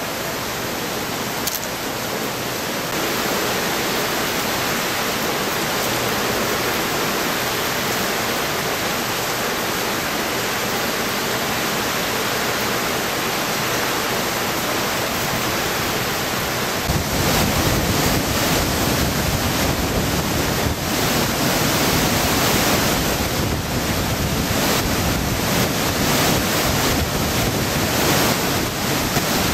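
Typhoon wind and driving rain over water gushing up out of a street storm drain. About seventeen seconds in, the sound changes abruptly to a deeper, heavier rush of a flooded river surging against bridge piers, with wind on the microphone.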